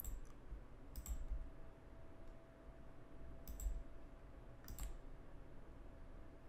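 Faint computer mouse clicks, about four quick press-and-release clicks a second or more apart, as radio-button fields are placed in a PDF editor.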